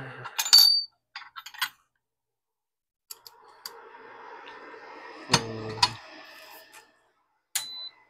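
Clicks and light metallic clatter of small tools being picked up and handled at an electronics repair bench, with a soft hiss for a few seconds in the middle.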